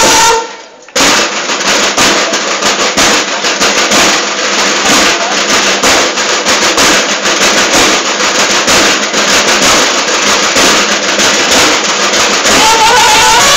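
Drum-and-bugle corps snare drums playing a fast, dense drum passage. The bugles break off right at the start, there is a brief pause, and the drums come in about a second in and carry on until the bugles return near the end.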